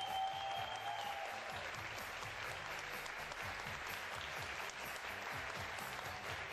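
Audience applauding steadily, the dense patter of many hands clapping. A single held tone sounds over the first second and a half.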